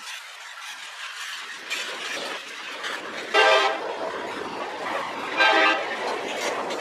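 Diesel freight locomotive's air horn sounding two blasts about two seconds apart, over the growing rumble of an approaching train.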